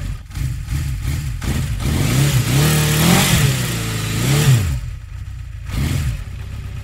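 Engine sound effect for a cartoon rocket ship flying past: a motor revving, rising in pitch twice, around three and four and a half seconds in, with a rushing hiss loudest in the middle.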